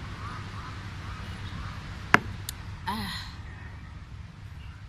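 A steady low background hum with a single sharp click about two seconds in, the loudest thing here, then a short voice sound about a second later.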